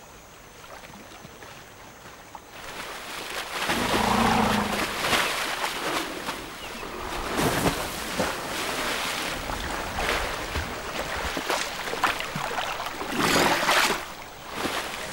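Elephants wading through a shallow waterhole, their legs and trunks churning and splashing the water. It starts fairly quiet, and from about two and a half seconds in there are many heavy splashes, loudest near the start of the splashing and again near the end.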